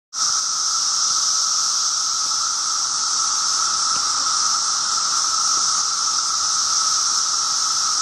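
Chorus of periodical 17-year cicadas (Magicicada) in the forest canopy: a steady, continuous whirring drone of many males calling at once during their mating emergence.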